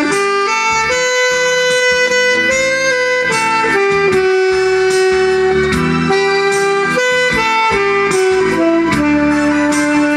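Saxophone playing a slow melody of long held notes over instrumental accompaniment.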